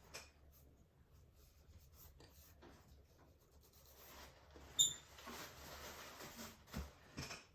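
Paintbrush rubbing and dragging acrylic paint across a canvas, a soft scratchy scrubbing. A sharp click about five seconds in, and two soft knocks near the end.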